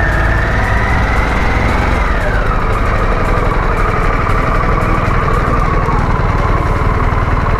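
Motorcycle engine under way: its pitch climbs steadily for about two seconds, drops sharply, then sags slowly for the rest of the time, over a steady low rumble.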